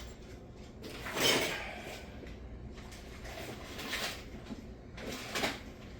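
Hands handling and moving tools and objects: a few short rustling, clattering bursts, the loudest about a second in.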